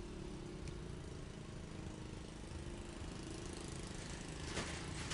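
Steady low background hum and hiss, with a few short clicks about four and a half seconds in.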